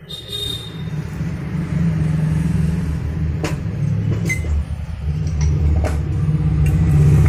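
An engine running with a steady low rumble, and a few sharp metallic clicks in the middle.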